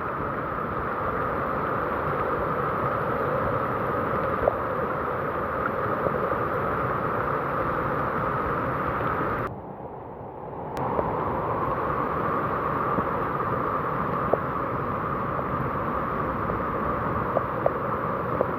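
Steady rush of a fast-flowing river together with heavy rain, dipping briefly about halfway through.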